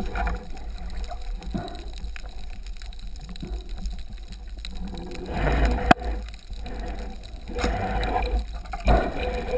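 Underwater water noise: a low rumble and gurgling of water moving past a camera housing as a freediver swims, swelling louder twice, with a single sharp click about six seconds in.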